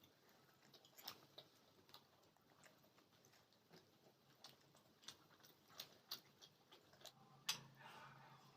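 Near silence with faint, scattered clicks and taps, one sharper tap about seven and a half seconds in.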